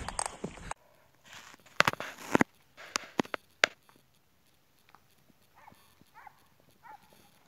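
Footsteps on a dirt forest track, a few sharp steps a second apart. Then hunting dogs bark faintly in the distance, a few short calls about two-thirds of the way through.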